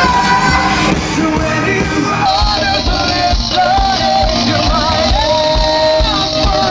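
Rock song with a lead vocal singing the melody; a steady drum beat comes in about two seconds in.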